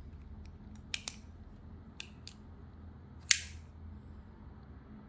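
Cold Steel AD-15 folding knife being worked open and shut: a few light metallic clicks of its Scorpion lock and blade, then one sharp, loud snap a little over three seconds in.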